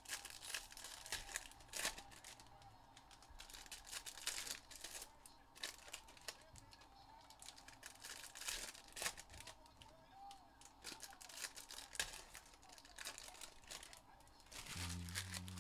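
Foil wrappers of 2022 Panini Prizm football hobby packs being torn and crinkled, with cards slid and shuffled against each other: a run of small, irregular crackles and rustles. A short low hum comes in near the end.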